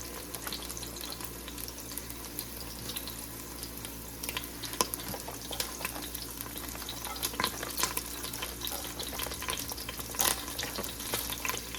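Chopped onions frying in hot oil in a pan: a steady sizzle with scattered pops and crackles.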